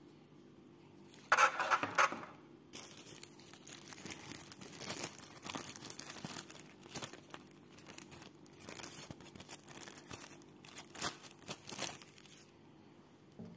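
Thin white wrapping paper being crumpled and crinkled by hand, in irregular rustles. A short, louder burst of handling noise comes about a second in.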